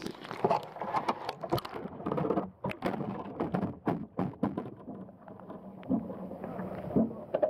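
Water sloshing and splashing against a camera's waterproof housing as it goes under the surface, with irregular knocks and bumps heard through the housing.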